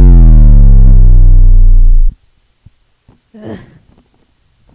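Loud, deep synthesizer drone with a downward-sweeping pitch, a music sting over the title card, cutting off abruptly about two seconds in. A short faint noise follows about a second later.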